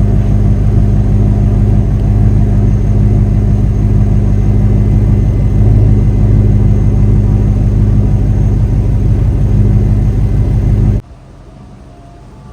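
Mercedes-Benz SL500 (R129) V8 engine running at a steady, even idle, loud and close. It cuts off abruptly near the end.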